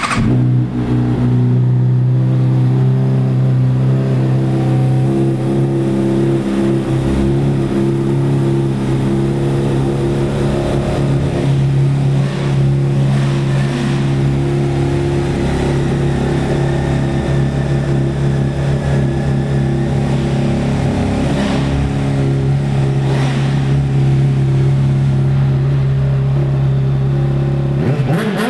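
Honda CBR600RR's 599 cc inline-four, breathing through an aftermarket Jardine carbon-fibre exhaust, running at a steady, unchanging speed with no revving.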